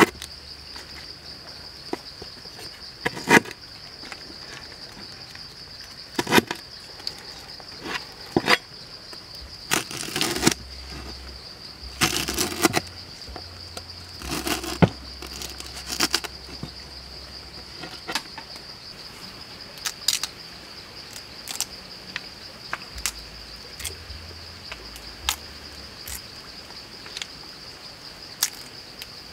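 A cleaver chopping lemongrass on a wooden chopping board: sharp, irregular knocks every second or two, with a few quick runs of chops. Under the knocks runs a steady, high-pitched insect drone.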